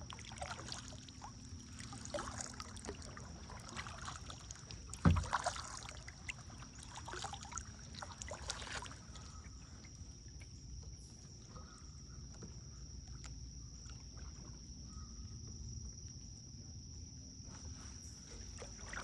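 Kayak paddle strokes dipping and splashing in river water, irregular for about the first nine seconds and then quieter, with a single sharp knock about five seconds in.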